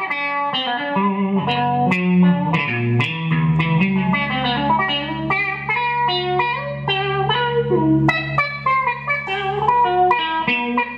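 Electric guitar played through a Boss GT-1 multi-effects unit's touch wah (auto-wah): a lead line of quick single picked notes, each with the vowel-like 'meow' that the filter sweep gives it.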